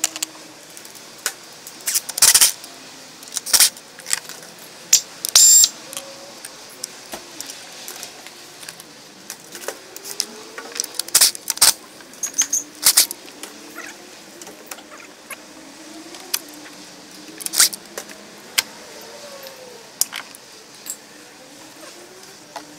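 Metal hand tools clinking and clanking against bolts and brackets as a car's upper engine mount is unbolted with a socket wrench and lifted out: scattered sharp clinks, some in quick runs of a few.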